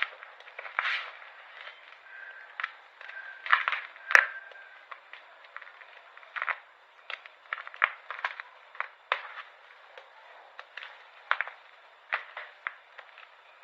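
Brittle pink squares being crushed: an irregular run of crisp crackles and snaps, with one sharp snap about four seconds in.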